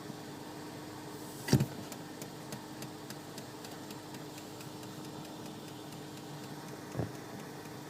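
Volvo XC60 ticking repeatedly as the brake pedal is pressed: a sharp knock about a second and a half in, followed by a run of faint ticks, roughly three or four a second, fading over a few seconds. Another knock comes near the end, over a steady low hum.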